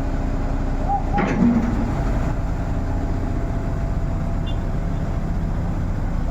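Heavy diesel engine running steadily at low revs, with a single short clank about a second in.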